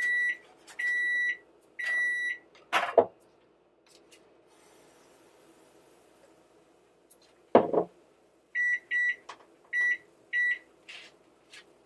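Electronic kitchen timer beeping: three long, even, high beeps about one a second as it goes off, then a run of short quick beeps as its buttons are pressed to set it again. Two loud knocks of kitchenware come in between, at about three seconds and near eight seconds.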